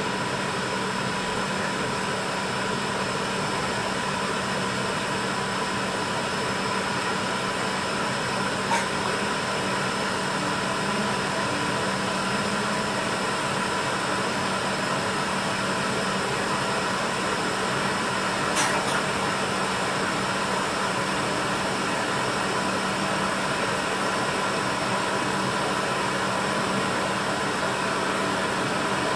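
Tteokbokki sauce boiling in a wide pan under a steady fan-like hum and hiss, with two small clicks about 9 and 19 seconds in.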